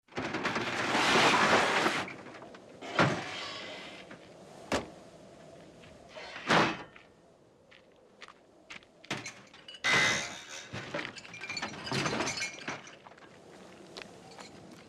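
Work-site noises: a loud hiss for the first two seconds, then a string of sharp knocks and slams like heavy doors, the loudest about six and a half seconds in, with further bursts of hissing and clatter around ten and twelve seconds.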